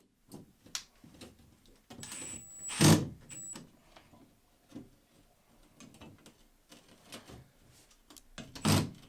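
Cordless drill/driver running briefly with a thin high whine about two seconds in, driving into the ceiling, followed by a sharp knock and a second short pulse of the motor. Scattered faint knocks from handling the mount, and another loud burst near the end.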